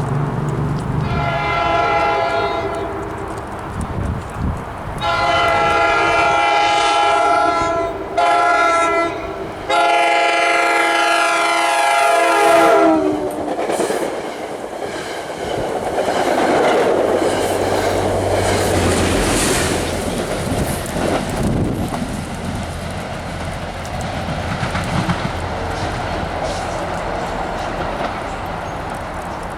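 Train horn sounding four blasts in a long–long–short–long pattern, its chord dropping in pitch at the end of the last blast as the train goes by. Then the train rolls past, with wheels rumbling on the rails and the locomotive's engine humming.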